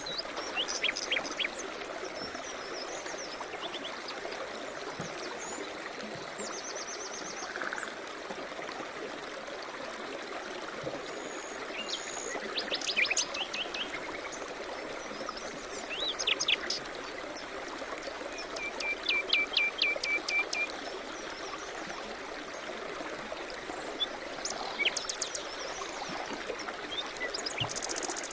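Small songbirds chirping and trilling in short bursts over the steady rush of a flowing stream. A fast run of repeated notes comes about two-thirds of the way through.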